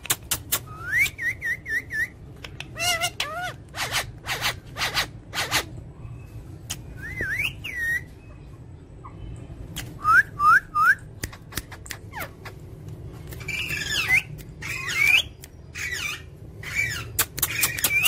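Rose-ringed parakeets (Indian ringnecks) calling: short whistled chirps, with a quick run of up-and-down whistles about a second in and three rising whistles about ten seconds in, then harsher squawking calls a little later. Many sharp clicks are scattered through.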